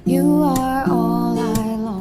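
Background music: strummed acoustic guitar with a soft melody line carried over it.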